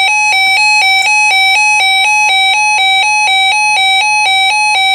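Loud electronic two-tone alert from a weather radio, switching between two pitches about four times a second at a steady level. It sounds ahead of a broadcast tornado watch message.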